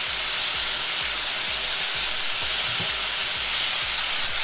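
Large cubes of chicken breast searing in hot vegetable oil in a frying pan on their second side, a loud steady sizzle.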